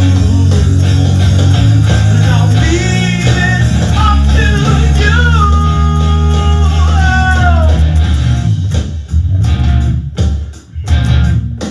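Full-band rock jam led by a Stratocaster-style electric guitar over sustained bass notes, with a high melody line of sliding, bent notes through the middle. Near the end the band breaks into short stop-start hits with sudden gaps between them.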